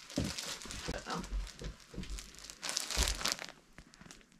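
Clear plastic packaging around a new shirt crinkling as it is handled, in irregular bursts with a few soft thumps, dying down near the end.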